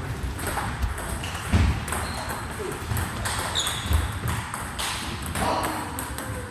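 Table tennis ball ticking off the paddles and the table during a rally, a short sharp tick about every second.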